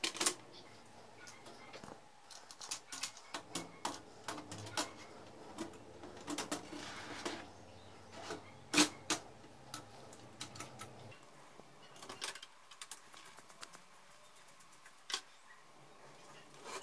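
Scattered plastic and metal clicks and knocks from a partly dismantled HP LaserJet Pro colour laser printer being handled by hand. A faint low hum runs under the first part and stops about eleven seconds in.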